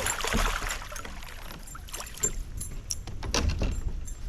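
Water splashing and knocking against a kayak, with scattered clicks and thumps, as a just-caught largemouth bass is handled in the boat; the splashing is strongest right at the start.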